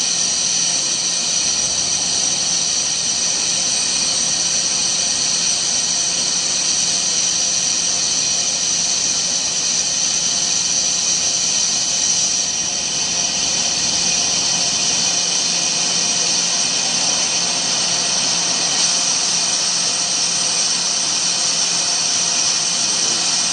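Heavy CNC roll-turning lathe taking a cut on a large grooved metal roll, the tool shearing hot chips off the spinning workpiece. It makes a steady high-pitched whine with hiss that barely changes.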